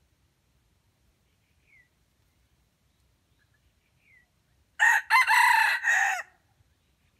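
Red junglefowl rooster crowing once, a short loud crow of about a second and a half, about two-thirds of the way in.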